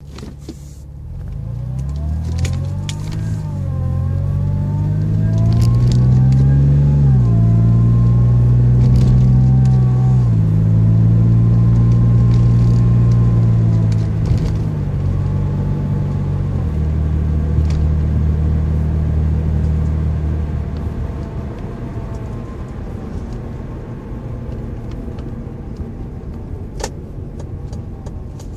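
2004 Mazda 6 engine being revved in steps and brought back down toward idle, with a whirring whine that rises and falls with engine speed. It is not from the belts or their bearings; the owner suspects the automatic transmission's fluid pump.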